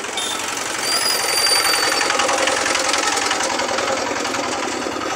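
A small motor-vehicle engine running close by, with a fine rapid pulsing; it grows louder about a second in and then slowly fades, as a vehicle passing. A brief thin high whine is heard around the loudest moment.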